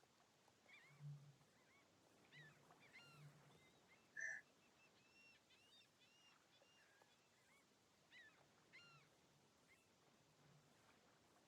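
Near silence, with faint scattered high chirps and a brief tone about four seconds in.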